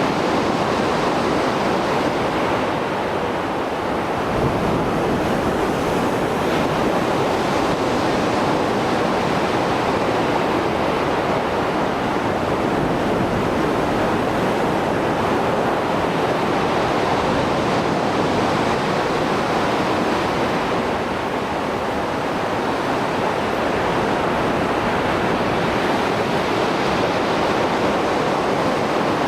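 Rough sea after a storm: waves breaking and surf washing continuously, in slow swells of a few seconds each.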